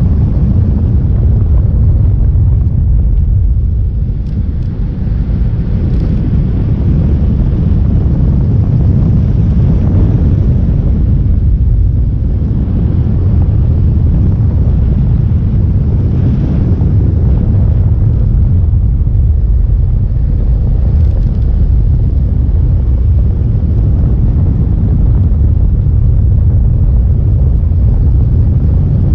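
Motorcycle on the move, a steady low rumble of engine, road and wind buffeting the microphone.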